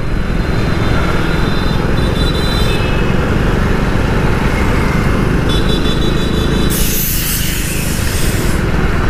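Wind rumbling over the microphone of a moving motorcycle, with the bike's engine and road traffic mixed in. A loud hiss rises for about two seconds near the end.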